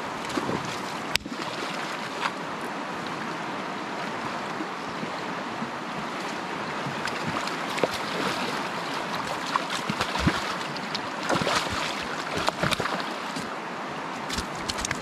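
Fast river current rushing over a rocky bed: a steady wash of water noise, with a few sharp clicks and knocks scattered through it, most of them about eleven to thirteen seconds in.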